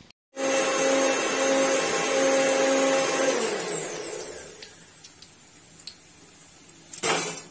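A small electric motor runs steadily with a whine, then is switched off about three seconds in and winds down, its pitch falling. After it a faint hiss remains, the sizzle of cutlets deep-frying in oil, with a brief louder rush near the end.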